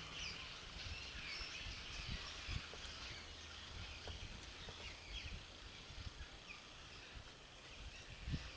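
Birds chirping and calling repeatedly in short high notes, over a faint low rumble of wind.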